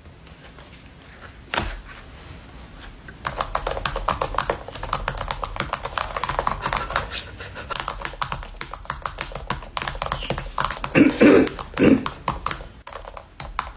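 Rapid clicking of typing on a computer keyboard, fast and uneven, starting about three seconds in. A single knock comes about one and a half seconds in, and two heavier thuds come near the end.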